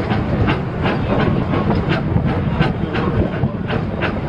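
A narrow-gauge train's open passenger car rolling over the rails of a steel trestle bridge: a steady low rumble with sharp wheel clicks about two to three times a second.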